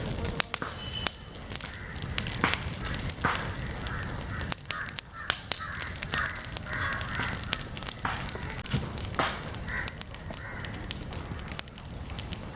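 Crows cawing several times, over a steady low rumble and scattered sharp clicks.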